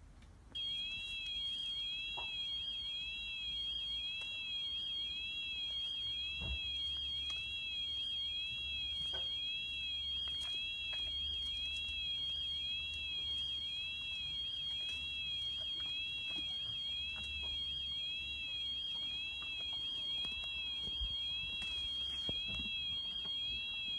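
Robotic lawnmower sounding its alarm: a steady high-pitched electronic tone that switches on just after the start and holds, with a wobble about once a second. It goes off after the moose has knocked the mower about; the filmer calls the mower wrecked.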